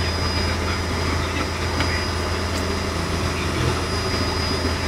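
Fishing boat's engine running steadily, a constant low drone heard inside the wheelhouse, with a faint steady high whine over it.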